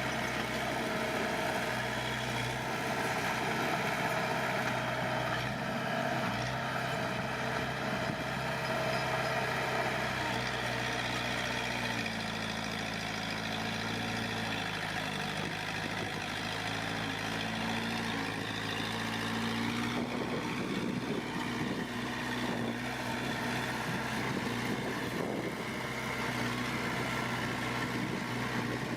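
Heavy diesel earthmoving machinery running steadily; the engine note shifts about twelve seconds in and again about twenty seconds in.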